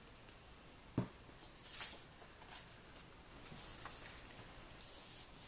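Quiet handling of cardstock panels: one light tap about a second in, then a few faint paper rustles and soft rubbing as a panel is pressed down.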